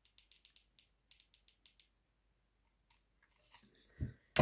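Faint, crisp crinkling and ticking of small paper craft pieces being handled over the first two seconds. A soft knock comes about four seconds in and a sharp tap right at the end.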